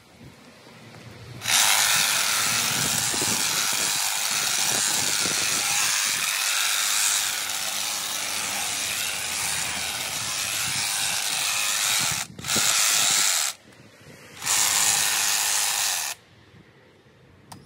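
Honda HHH36AXB cordless battery hedge trimmer running, its reciprocating blades cutting the hedge. It starts about a second and a half in and runs for about ten seconds, then is run twice more in short spells of a second or two before stopping.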